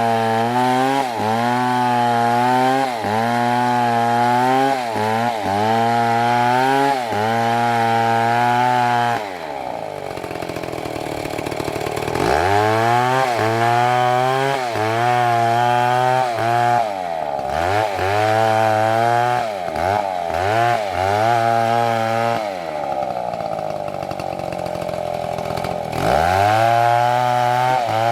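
Chainsaw cutting into a large tree trunk, its engine pitch dipping and recovering about once a second as the chain bites. About a third of the way in, and again near the end, the engine drops to a lower note for a few seconds before revving back up.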